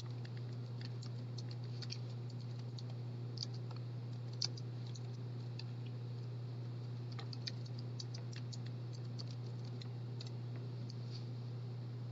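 Computer keyboard being typed on: faint, irregular key clicks, with a quicker run of keystrokes in the second half, over a steady low hum.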